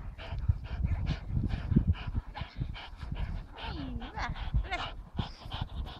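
A one-year-old dog panting and giving short whines while it tugs hard on a toy, over the steady scuffle and crunch of feet in snow.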